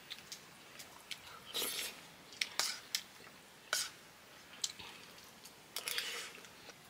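Eating sounds: scattered small clicks and brief scrapes of food being taken from a plate, with some chewing.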